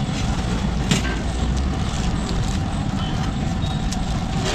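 Steady low roadside rumble, with a single sharp click about a second in.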